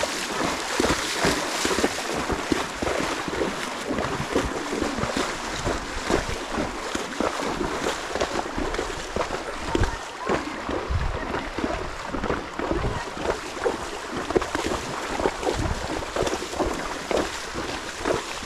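Horse wading through shallow river water, its hooves splashing at an irregular pace, with wind buffeting the microphone.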